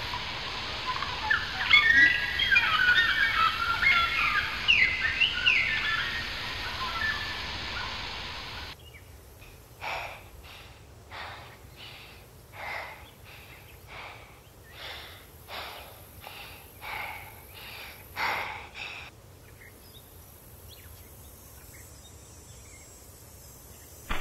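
Birds chirping over a steady hiss, which cuts off suddenly about a third of the way in. Then a regular series of about a dozen footsteps, roughly one every 0.7 s, followed by a quiet stretch near the end.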